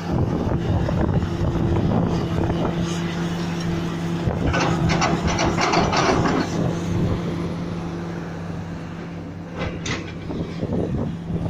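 Diesel engine of a large road-construction machine running steadily, with a louder rush of noise a little under halfway through and a sharp knock near the end.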